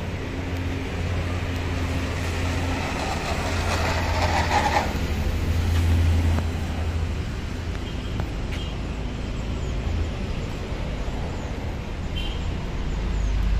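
Radio-controlled Cessna 182 model plane's motor and propeller running at takeoff power as it rolls down the runway and climbs away, loudest about four seconds in, then fainter as it gains distance. A steady low rumble sits underneath throughout.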